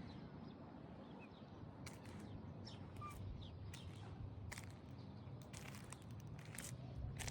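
Faint outdoor ambience: scattered short bird chirps over a steady low rumble, with a few light clicks.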